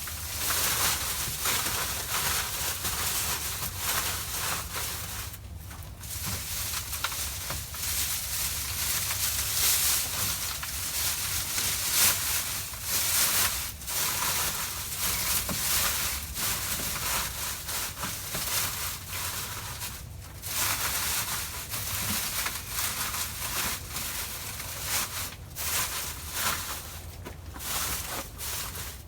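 Dry straw rustling and crackling as it is handled and packed into plastic nest boxes, with a few brief pauses.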